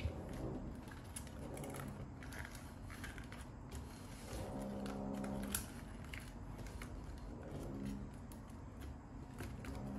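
Small acrylic-cased display panels being slid and set down by hand on a rubber work mat: faint scattered clicks and light knocks. A faint low hum comes in for about a second near the middle.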